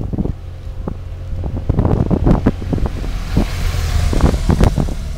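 Wind buffeting the microphone of a camera riding on a bicycle, with a steady low rumble and irregular knocks and rattles as the bike rolls over paving stones. A hiss swells in the second half.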